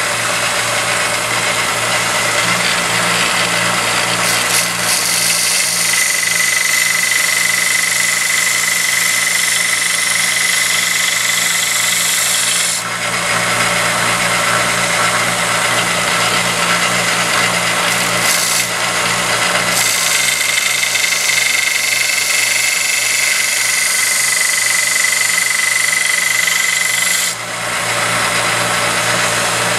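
Grizzly 1x30 belt grinder running, its motor humming steadily while a steel knife blade is ground against the moving belt, giving a loud grinding hiss with a high whine. The grinding drops away briefly three times, between passes.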